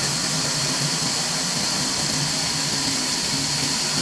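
Steady machine noise: a low hum under an even hiss, unchanging throughout.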